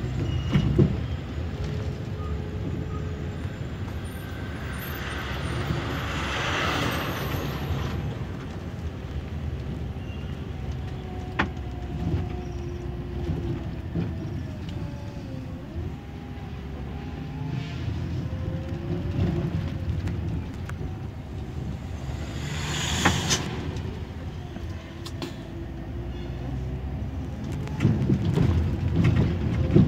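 Scania coach driving, heard from inside the cabin: a steady low engine and road rumble with an engine whine that rises and falls with speed, scattered rattles and clicks, and two short bursts of hiss about six and twenty-three seconds in.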